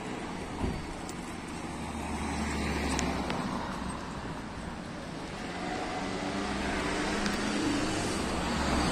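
Street traffic: motor vehicle engines running and passing, with a steady low hum that swells and fades. There is a short knock about half a second in.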